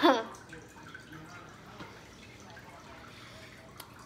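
People chewing dry biscuits, with faint wet mouth clicks, after a brief voice sound at the start; a single sharp click comes near the end.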